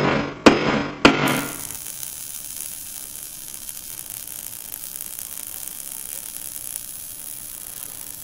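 Sound effects for an animated title logo: three sharp hits about half a second apart, each fading fast, then a steady hiss as the logo breaks up into particles.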